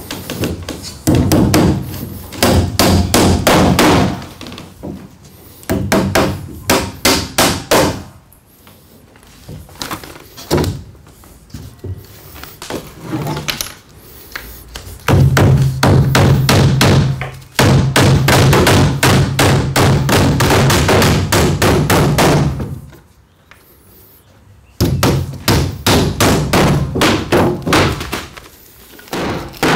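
Hammer driving nails into wooden floorboards, in several bursts of rapid blows with short pauses between them.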